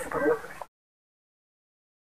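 A voice trails off in the first half-second, then cuts off suddenly into dead digital silence.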